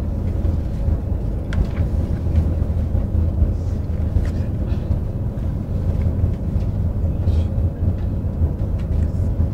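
Boat engine running, a steady low drone heard on board.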